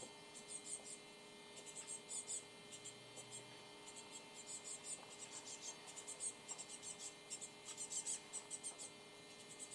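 Great spotted woodpecker pecking at nuts in a feeder: faint clusters of quick, light, high-pitched taps, several to a burst, repeating about once a second over a steady low hum.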